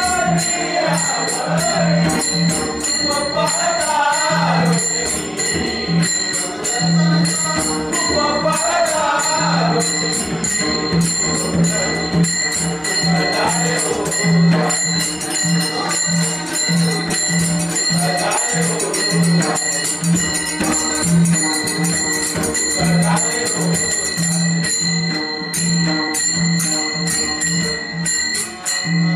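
Marathi devotional bhajan: voices singing over a pakhawaj barrel drum beating a steady rhythm, with small hand cymbals clinking on the beat.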